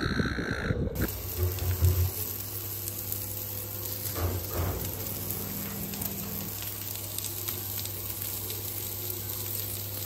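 Crumbed King George whiting fillets frying on a hot flat-plate griddle: a steady sizzle over a low steady hum, starting about a second in.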